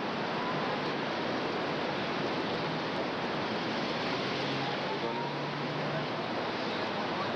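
Steady city street din of traffic in a busy square, heard on a camcorder microphone as an even rush. A faint low hum and a thin rising whine come in about halfway through.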